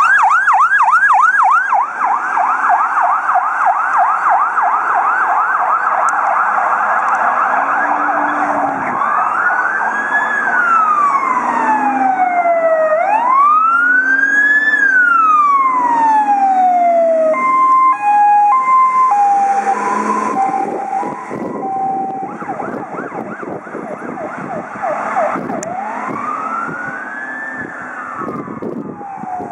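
Fire engines' electronic sirens: a fast yelp, then slow rising-and-falling wails, then a few seconds of stepped horn notes about two-thirds of the way in, then yelp and wail again. The sirens grow fainter toward the end as the vehicles move away.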